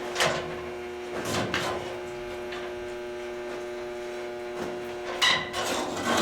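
Non-metal hammer knocking a plug into a leaking boiler tube, a few spaced blows with two close together near the end, over a steady electrical hum.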